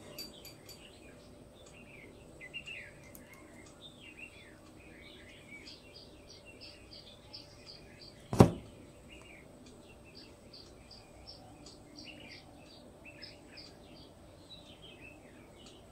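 Small birds chirping over and over in short, quick calls in the background, with one sharp knock about eight seconds in.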